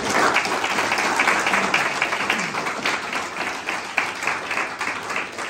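Audience applauding: many people clapping, fading away near the end.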